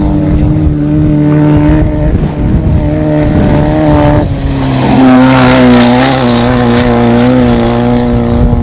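Off-road race vehicle engines running at a fairly steady speed. About four seconds in the pitch drops, and from about five seconds the sound grows louder and harsher.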